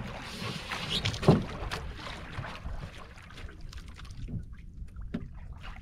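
Knocks and clatter on a small wooden outrigger boat as gear is handled in the hull. There are scattered light clicks, one louder knock just over a second in, and a steady noisy background.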